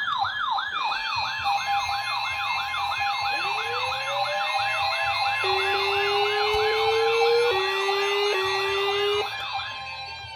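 Several electronic siren alarm tones sound together as a new warning alert comes in. A fast yelp sweeps down about three times a second over a higher warble and steady tones. A lower rising tone joins a few seconds in, and most of the sound drops away near the end.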